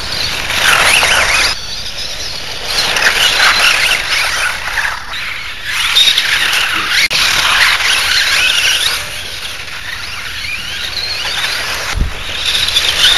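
High-pitched whine of the small electric motors and gear drivetrains of 1/18-scale Associated RC18B2 buggies, rising and falling in pitch in repeated swells as the throttle is applied and released. A single low thump near the end.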